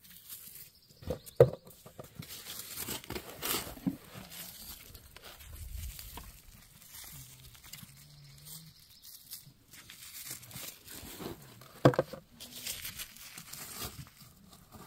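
Gloved fingers rubbing and crumbling clay off small dirt-caked quartz crystals, an uneven dry scratching rustle. Two sharp clicks stand out, one about a second in and one near the end.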